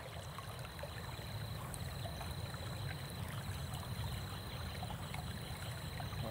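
Flowing river water at night, a steady rush that slowly grows louder. A faint high, thin steady tone runs over it, breaking off briefly every second or two.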